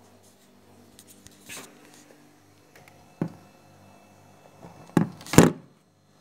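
Handling noise from a phone being moved and pressed against clothing: faint rustles, a sharp knock about three seconds in, and two loud rubbing bursts around five seconds, after which the sound cuts out abruptly.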